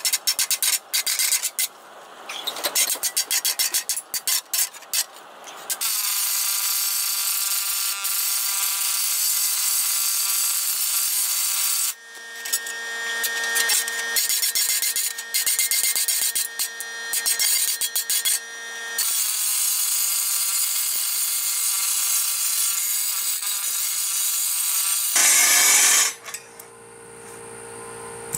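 Rapid hand-hammer blows on a quarter-inch steel plate lying over an anvil, putting a hammered texture on it, with the plate ringing. In long stretches the blows come so fast they run together into a steady din. There is a short, very loud burst of noise near the end.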